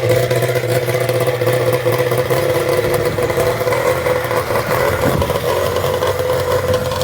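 Snowmobile engine on a homemade go-kart idling steadily while it warms up.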